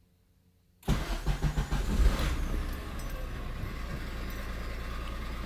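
A 2000 Honda Insight's three-cylinder engine is cranked by its starter about a second in. It fires with uneven pulses for a second or so, then settles into a steady idle.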